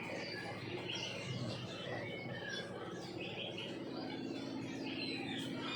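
Small birds chirping and twittering in quick, repeated calls over a steady background hum.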